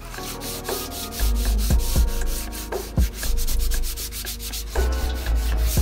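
Sandpaper rubbed back and forth by hand over a mahogany board: a scratchy, rasping sanding sound, knocking down the wood fibres raised by a damp wipe. Background music with a low beat plays under it.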